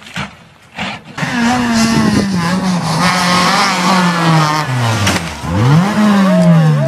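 Rally car engine at high revs: after a second of faint scattered knocks, its note falls steadily over several seconds as the car goes by. Near the end the note sweeps sharply up again and then drops away.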